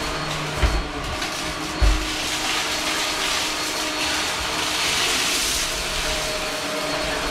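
Upright vacuum cleaner running steadily as it is pushed and pulled over carpet, sucking up a trail of dark granular debris. Two low thumps come about two-thirds of a second and two seconds in, and the noise turns brighter and hissier around five seconds in.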